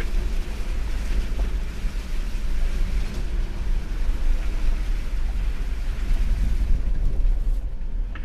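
A vehicle driving, heard from the cab: a steady low rumble of engine and road noise, with some wind noise on the microphone.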